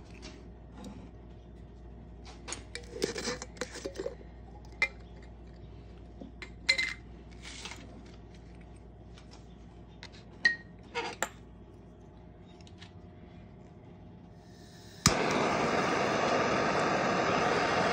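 Scattered small clinks and taps of metal and glass on a workbench, then a sharp click about fifteen seconds in as a handheld gas torch lights, followed by the torch flame's steady loud hiss. The torch is lit to heat the copper ring before it goes into pickle.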